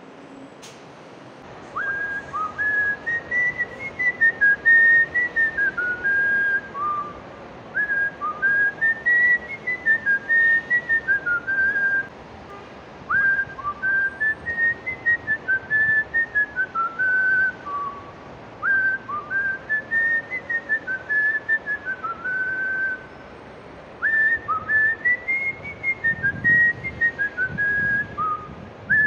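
A man whistling a tune, a clear single melody repeating the same phrase about every five to six seconds with short breaks between, starting about two seconds in.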